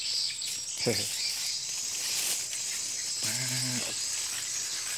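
Steady high-pitched chorus of insects, with leaves and stems rustling as someone pushes through dense undergrowth; two short voice sounds break in, about a second in and again past the middle.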